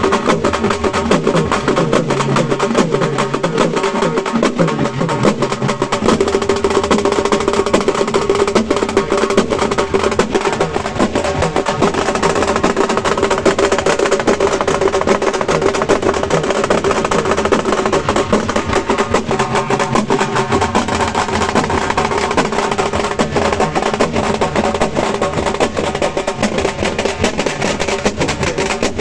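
Halgi frame drums beaten with sticks in a fast, dense, continuous rhythm, loud throughout.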